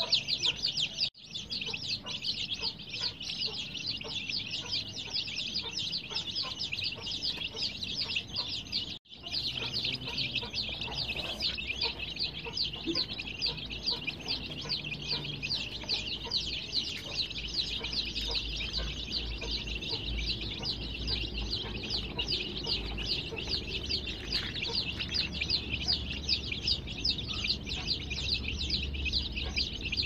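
A brood of baby chicks peeping continuously, many high chirps overlapping at once. The chorus breaks off briefly twice, about one second in and about nine seconds in.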